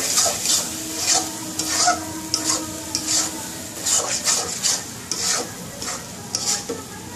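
A spatula scraping and stirring young jackfruit curry in a hot non-stick wok, in repeated strokes about twice a second over a steady frying hiss. This is the final dry-frying stage of the dish.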